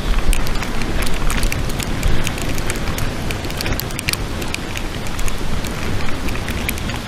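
Wind buffeting the microphone in a snowstorm: an uneven rushing rumble with many scattered small ticks and crackles through it.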